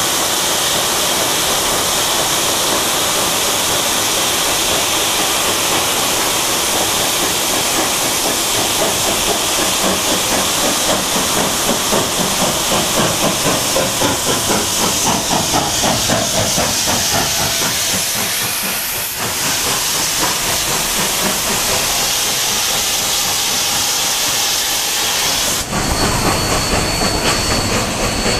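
Steady loud hiss of steam from a narrow-gauge steam locomotive standing on the siding, while a second steam train comes alongside with a rhythmic beat around the middle. Near the end its passenger cars roll past close by with a low rumble and a thin, steady high wheel squeal.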